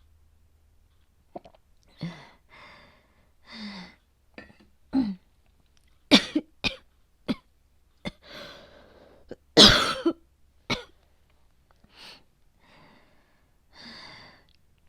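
A woman's coughing fit, acted as a bad cold with high fever: a run of short coughs, the loudest about six and nine and a half seconds in, with breathy gasps between them.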